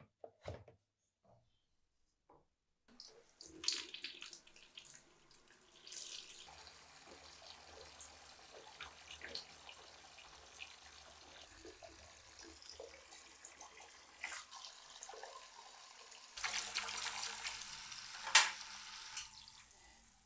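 Electrolysis bath fizzing: a steady crackle of small gas bubbles rising off a rusty meat grinder and a steel rod in water, as rust is being lifted off the grinder. It starts about three seconds in after a few light clicks, and grows louder near the end, with one sharp click.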